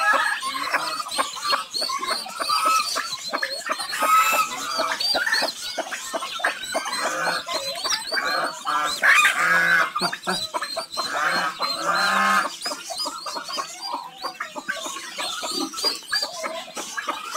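A crowd of baby chicks peeping without pause in many short, high chirps. Louder, lower calls stand out several times, about four, nine and twelve seconds in.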